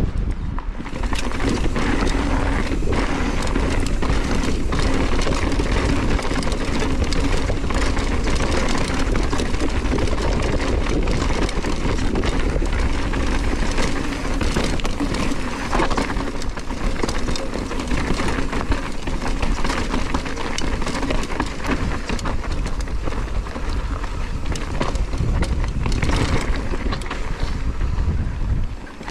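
Hardtail mountain bike ridden down a gravel dirt trail. Its knobby tyres rumble and crunch over loose stones, and the bike rattles and knocks with many small clicks, over a steady rush of wind on the microphone.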